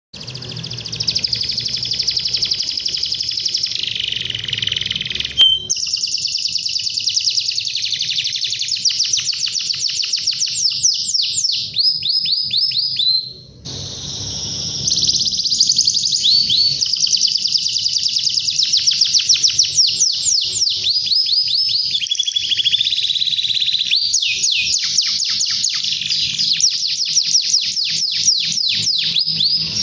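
Domestic canary singing a long, loud song of rapid rolling trills, each phrase a quick string of repeated notes, with a short break about halfway through.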